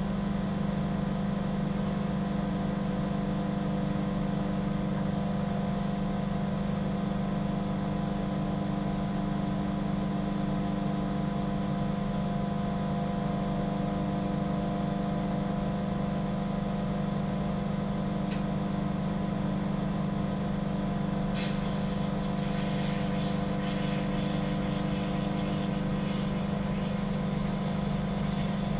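Microwave oven running with a steady electrical hum while heating an orange. About three quarters of the way through comes one sharp pop, followed by a few seconds of faint crackling.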